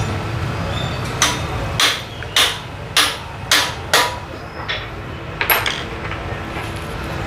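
Sharp metal-on-metal clinks from a tool working a bolt on the motorcycle's headlight bracket: about six evenly spaced strikes, nearly two a second, then two weaker ones, each ringing briefly, over a steady low hum.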